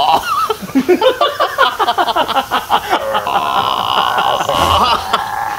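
A man imitating a loud stomach gurgle with his voice, a drawn-out wavering "eul-eo-eo-eol, eo-eo-eo-eo" held for about two seconds in the second half, while another man laughs.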